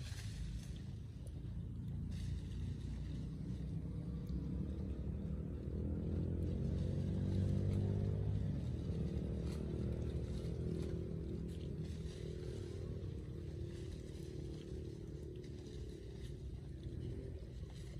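Engine of a passing motor vehicle, growing louder to a peak about halfway through and then fading away.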